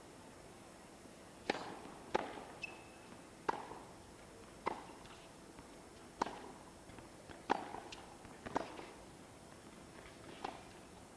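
Tennis rally on a hard court: racket strikes on the ball at about one every second and a quarter, with a brief high shoe squeak early in the exchange.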